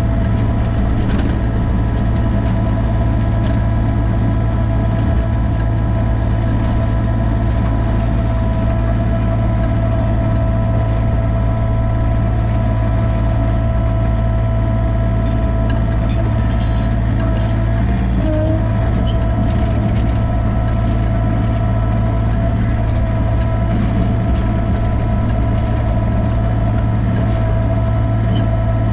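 Sany mini excavator's diesel engine running steadily, its pitch dipping briefly about eighteen seconds in.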